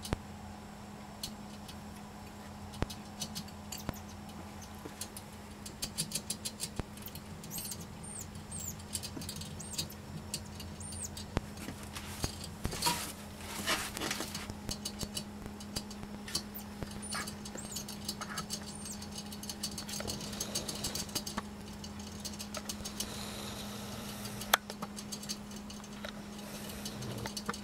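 Gerbils drinking from the metal spout of a hanging water bottle: rapid runs of small clicks as they lick it, coming and going in bursts.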